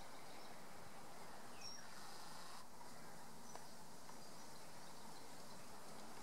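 Steady outdoor background hiss with a few faint, short bird chirps.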